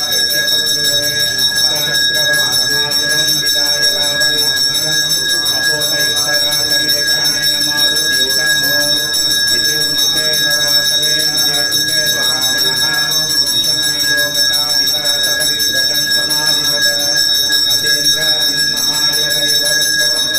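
Temple bell ringing continuously with an unbroken, steady ring, the rapid ringing of a temple ritual.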